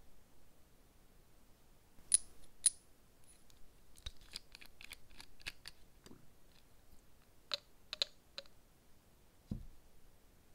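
Small sharp clicks and taps of nail tools and nail tips being handled: two loud clicks about two seconds in, a quick run of lighter clicks a little later, three more clicks near eight seconds, and a dull thump near the end.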